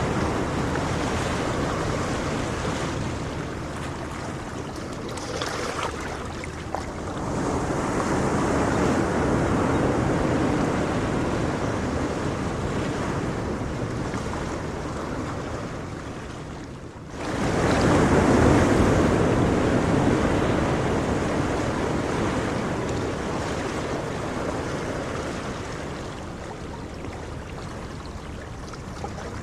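Ocean surf: waves breaking and washing in and out, swelling and ebbing. After a short lull a little past halfway, a bigger wave breaks, the loudest moment, then slowly fades.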